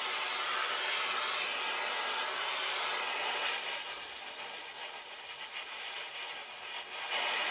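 Gas welding torch flame hissing steadily as a steel heating pipe is welded, easing slightly for a few seconds in the middle before coming back up.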